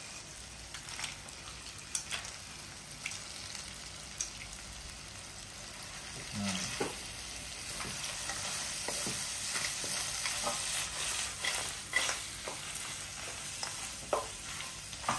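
Chilli sambal sizzling in a wok while crisp fried potato slices and anchovies are stirred through it with a wooden spatula. The stirring brings scattered clicks and scrapes against the pan, and it gets louder about six seconds in.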